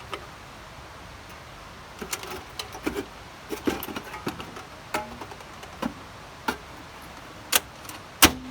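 Thin sheet metal being handled and fitted: scattered light taps, clinks and rattles, with a sharper metallic clank near the end that rings briefly.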